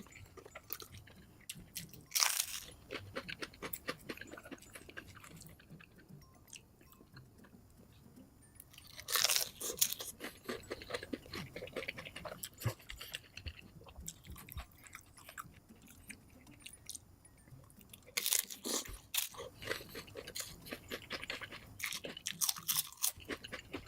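Close-miked eating at double speed: food being bitten and chewed in a steady run of crunches and wet clicks, with four louder spells of crunching.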